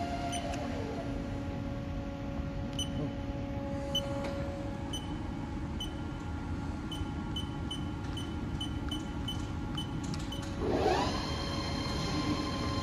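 Haas TL3 CNC lathe spindle running, with a steady whine from its drive. A run of light ticks comes midway. About eleven seconds in, the whine rises quickly in pitch and settles higher as the spindle speeds up.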